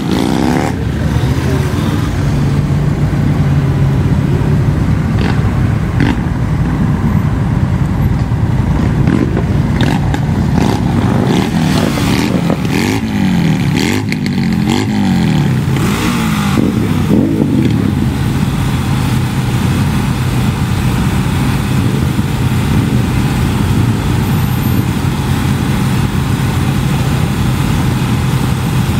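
Motorcycle engines in a large group ride, including the rider's Honda Rebel 1100 parallel-twin, running in slow stop-and-go traffic. The revs rise and fall several times around the middle, then the engines settle into a steady idle.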